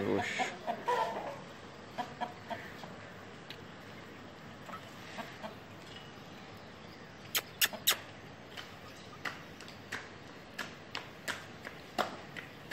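Aseel chickens clucking in short calls, mostly in the first couple of seconds, followed by scattered sharp clicks, three of them loud and in quick succession about halfway through.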